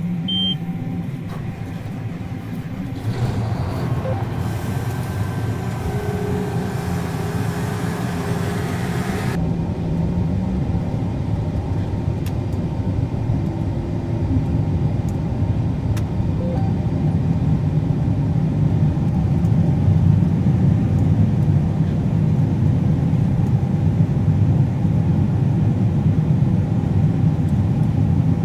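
Combine harvester running steadily while cutting wheat, a low even hum that slowly grows louder. A hiss rides over it from about three seconds in until it cuts off suddenly near nine seconds.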